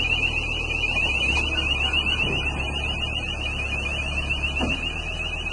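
Evoquip Colt 600 tracked mobile screener running, its diesel engine giving a low drone that changes note about a second in and again near the end, with its travel alarm warbling on one high pitch throughout.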